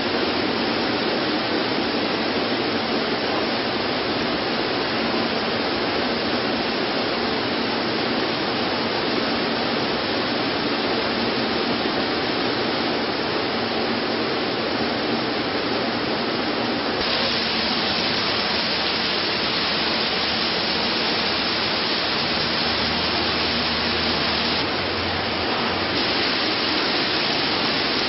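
Potato washing machine running with water spraying: a steady rushing noise that turns brighter and hissier about two-thirds of the way through.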